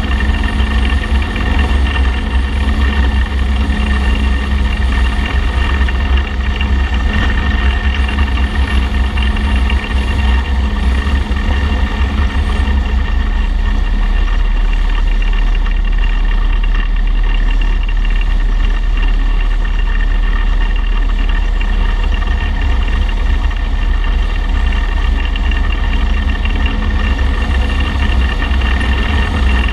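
Cruiser motorcycle's engine running steadily at road speed, with heavy low wind and road rumble on the bike-mounted camera.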